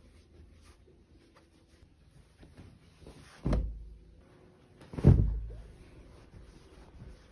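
Two dull thumps about a second and a half apart, among light clicks and rustles of household handling.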